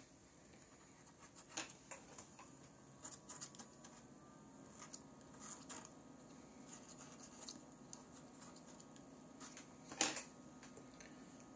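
Faint, scattered scratching and light clicks of glue residue being rubbed and scraped off a phone LCD screen, with one sharper click about ten seconds in.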